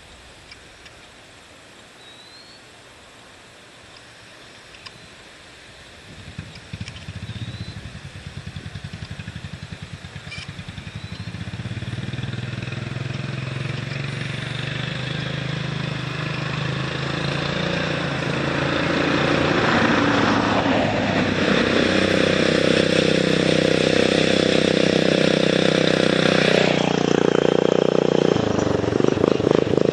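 Racing lawnmower engine with a loud exhaust approaching from a distance at speed, growing steadily louder for about twenty seconds until it is close and loud, with its note shifting near the end as it goes by.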